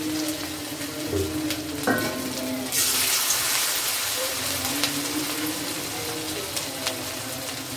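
Hot oil sizzling in a kadai as a handful of radish-and-carrot pakora batter is dropped in to deep-fry. The sizzle swells sharply about three seconds in, as the batter hits the oil, then settles back to steady bubbling.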